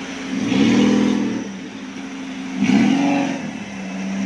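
Off-road 4x4 engine idling, then revved hard twice, each rev rising and falling over about a second, while the vehicle pushes through a muddy stream.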